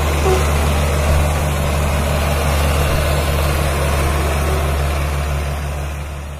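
Mahindra Arjun 555 DI tractor's four-cylinder diesel engine running steadily under load as it hauls a fully loaded trolley, a low even drone that fades out near the end.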